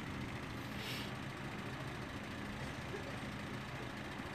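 A steady low background hum, with a brief soft hiss about a second in.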